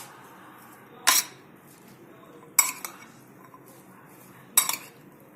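A spoon clinking against a bowl three times while mixing chopped vegetables and spices, each clink short with a brief ring.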